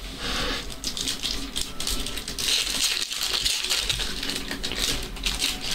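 Trading cards being handled and sorted: a busy, continuous run of rustling and small clicks.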